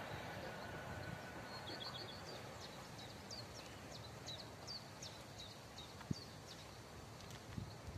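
A small songbird singing a run of short high chirps, about three a second, from about two seconds in to near the end, with one sharp click about six seconds in. Faint noise from the departed freight train fades out over the first second.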